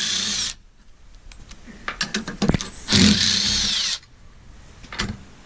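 Power tool spinning out the 3/8 bolts on an E-Z-Go Team golf cart clutch's top plate, in short bursts of about a second: one ending about half a second in, another a few seconds later. A few sharp metal clicks fall between the bursts.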